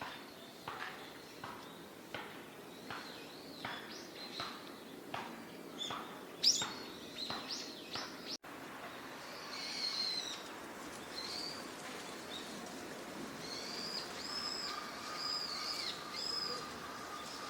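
Eurasian wigeon whistling: a run of short, high, falling calls repeated about once a second, then, after a brief break, a series of higher arched whistles close together near the end.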